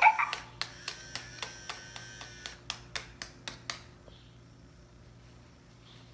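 A quick run of sharp clicks and taps, about three a second, from toy cooking pieces being handled, dying away after about four seconds.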